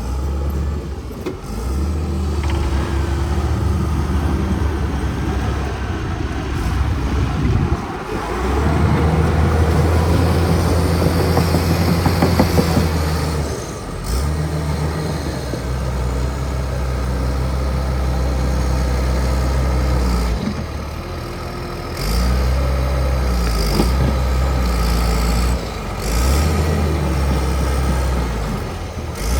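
Bulldozer's diesel engine working under load. Its level and pitch step up and down every few seconds, with short dips and some bends in pitch.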